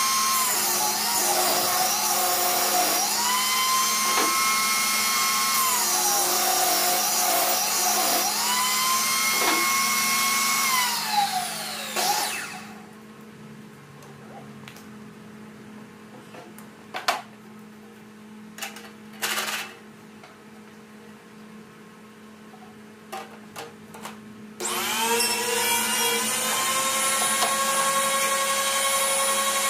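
Portable table saw running with a high motor whine that sags in pitch several times as boards are pushed through the blade. It is switched off and spins down about 12 seconds in, followed by a few knocks of wood being handled. About 25 seconds in, a power tool motor starts up and runs with a steady whine.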